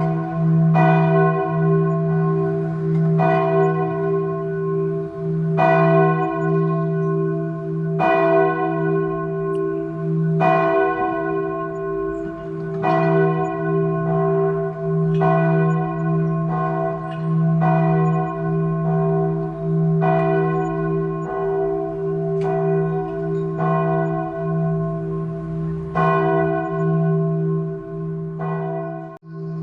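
Church bell tolling slowly, struck about once every two and a half seconds, each stroke ringing on into the next so its hum never dies away.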